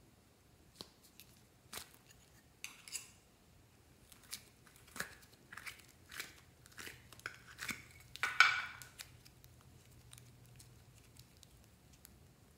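A thin clear plastic container of green clay being handled and opened, with scattered clicks and crinkles of the plastic and sticky clay peeling out of it. The loudest is a brief crackle about eight seconds in.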